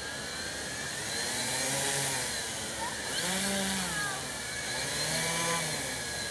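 Electric hexacopter's six brushless motors and 11x5 propellers buzzing, the pitch swelling up and falling back about three times as the throttle is raised and eased near the ground.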